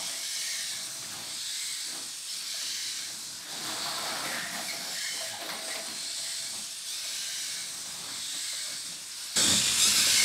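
MG996R hobby servos in a robotic snake whirring and chattering as they drive its body through a slithering wave. The sound is a steady hiss with faint clicks, and it gets louder near the end when heard up close.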